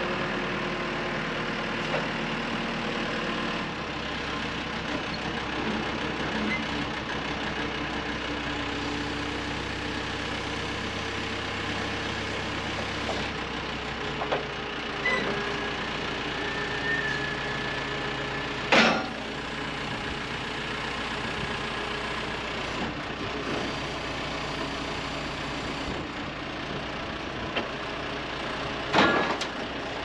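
JLG telehandler's diesel engine running steadily, its pitch shifting a few seconds in, with a few sharp metallic clanks, the loudest about two-thirds of the way through and another near the end.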